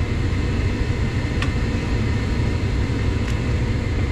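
Steady low rumble of running boiler-room machinery, with a couple of faint clicks.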